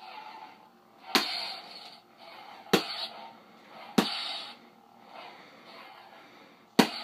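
Toy lightsaber's electronic sound effects through its small speaker: a steady faint hum broken four times by sharp clash sounds, each fading out over about half a second.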